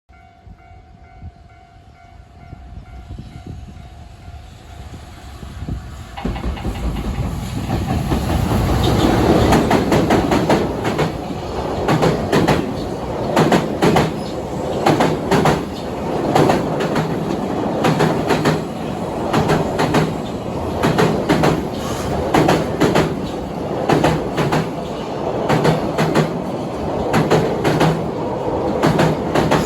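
A long train approaches and passes close by. Its wheels clack over the rail joints in a steady repeating rhythm, one group of clacks per bogie, and it is still passing at the end.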